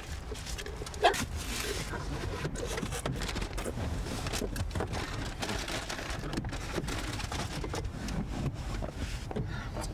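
Paper food wrappers and a paper bag rustling inside a car, with small irregular clicks and knocks, a sharp click about a second in, and a car door opening near the end.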